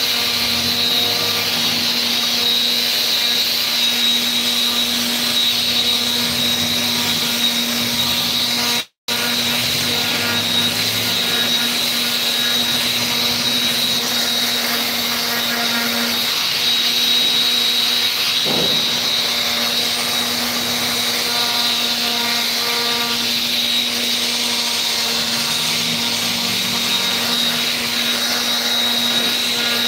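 Paint sprayer running steadily while paint is sprayed onto a forklift's bodywork: a continuous hiss over a steady motor hum. It cuts out for a moment about nine seconds in.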